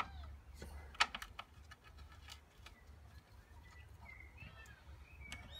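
Small plastic clicks and taps from handling the Ford Focus Mk2 bonnet lock and plugging its wiring connector back on, with a sharp click about a second in followed by a few lighter ones.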